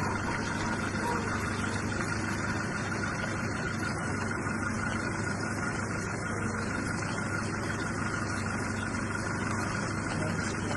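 An engine running steadily at idle, an even hum with no change in speed.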